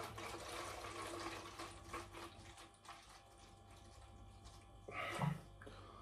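Gin glugging and splashing as it is poured from a glass bottle into a large plastic bottle, strongest for the first two seconds and then thinning to a faint trickle. A short vocal sound about five seconds in.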